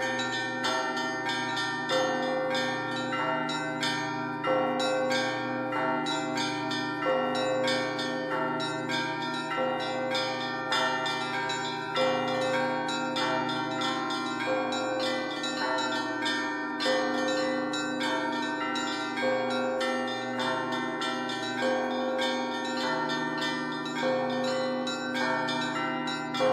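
Russian Orthodox church bells being rung by hand: quick, continuous strokes on the small treble bells (zvony) over sustained middle tones, with a heavier, lower bell struck about every two and a half seconds.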